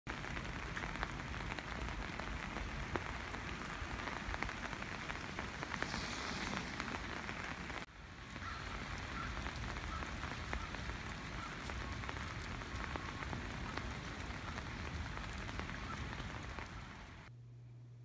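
Steady rain falling on garden foliage, an even patter with scattered drop ticks. It dips briefly about eight seconds in, and near the end it stops, leaving only a faint low hum.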